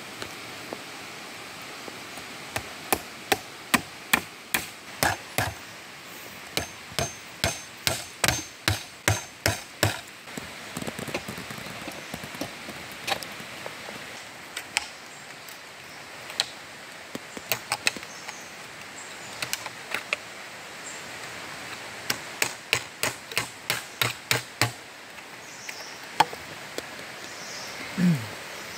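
Hammer knocking on wooden stakes as a stick basket trap is built: sharp knocks about two a second, in two long runs with a few stray knocks between.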